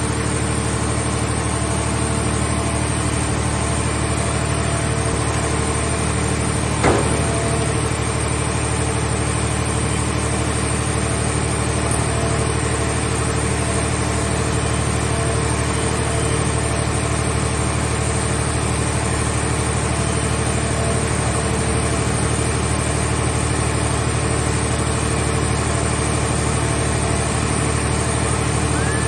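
Engine of a portable car-shell baler running steadily at an even speed, with one short sharp knock about seven seconds in.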